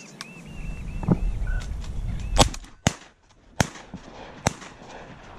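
Shotgun shots at flying ducks: four sharp blasts over about two seconds, starting a little past two seconds in, the first the loudest.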